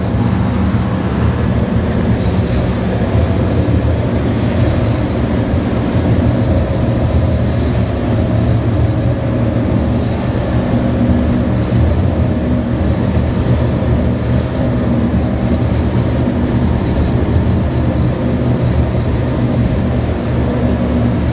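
A charter fishing boat's engines running steadily at cruising speed, a low even drone, with rushing water from the wake.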